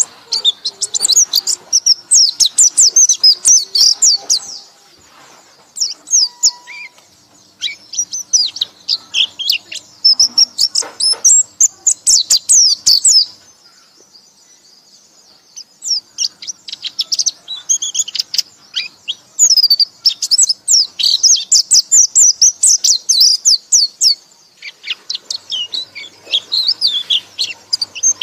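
Rapid, high-pitched chattering song of a white-eye (pleci), its sustained 'ngekek' chatter, in runs of several seconds broken by pauses of a second or two.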